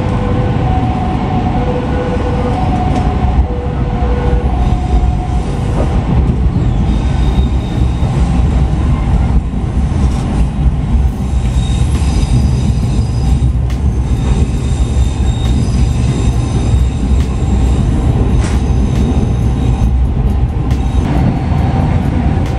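Passenger train running, heard from inside the coach: a steady low rumble of wheels on rail with scattered clicks and thin high wheel squeal around the middle. A repeating two-note tone sounds through the first five seconds.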